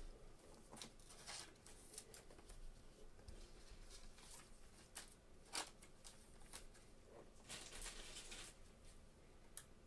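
Faint, scattered rustling and light clicks of trading cards being handled and sorted, with a card in a rigid plastic top loader.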